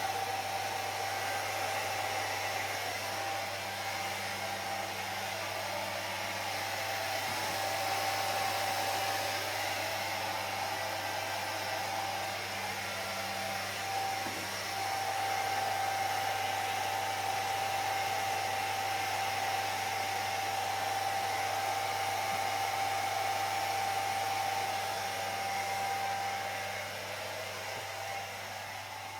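Hair dryer blowing steadily: a continuous rush of air with a steady whine and a low hum, switched off right at the end.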